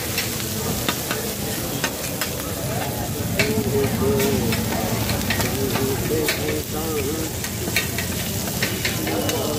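Nalli chaap (mutton shank meat) with egg and mince frying on a large flat griddle (tawa), sizzling steadily. Metal spatulas scrape and clack against the griddle in quick, irregular strokes as the cook chops and turns the food.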